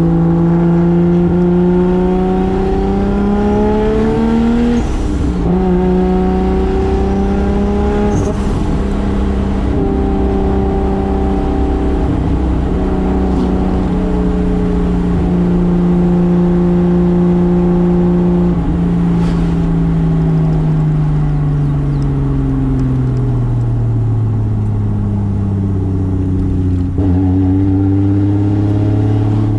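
Single-turbo 2JZ straight-six in a 1995 Toyota Soarer pulling through the gears: engine speed rises and drops at shifts about five and eight seconds in, then holds steady at a cruise. From about twenty seconds in the engine note falls slowly as the car slows, and near the end there is another shift and the revs climb again.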